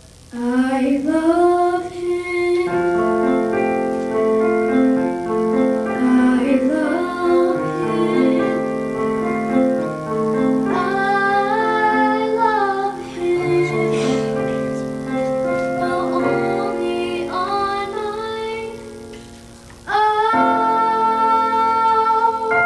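A young girl singing a show tune solo into a microphone, with long held notes over sustained keyboard chords. Her voice eases off about three-quarters of the way through, then comes back strong on a long held note near the end.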